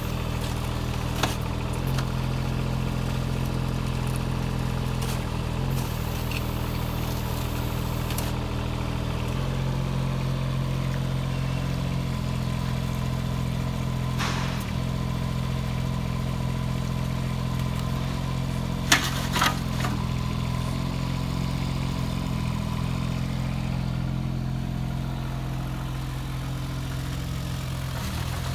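Kubota micro excavator's diesel engine running steadily as the machine tracks across the yard, with a few sharp knocks, two of them close together about two thirds of the way through.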